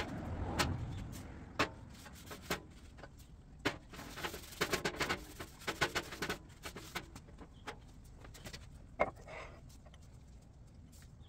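Scattered clicks and knocks of metal parts and tools being handled at a workbench, with a quick run of clatter in the middle and one sharper knock near the end.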